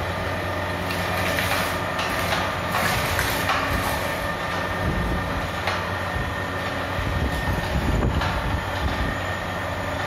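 Twin-shaft chicken waste shredder running: the electric motor and chain drive make a steady mechanical noise while the toothed blades crunch through chicken waste, with irregular sharp cracks.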